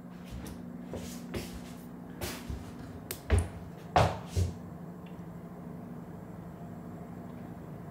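A string of light clicks and knocks, then three louder dull thumps between about three and four and a half seconds in, over a steady low electrical hum that carries on alone afterwards.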